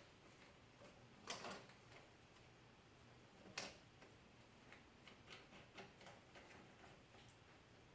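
Near silence with a few faint clicks, then a run of light ticks in the second half: small parts of a drill press dust collection fixture being handled and adjusted.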